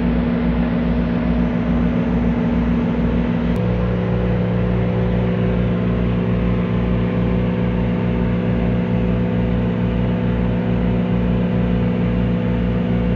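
Steady drone of a ship's engine heard on board, with a low throb about three or four times a second. The hum shifts slightly in pitch, with a faint click, about three and a half seconds in.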